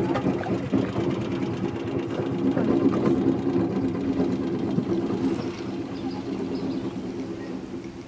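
Small wooden boat's engine running steadily as the boat pulls away from a jetty, with an even, fast pulsing hum; it fades away near the end.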